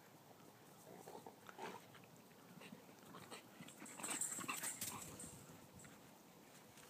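Dogs at play, one of them giving short, faint vocal sounds; the loudest moment comes about four seconds in.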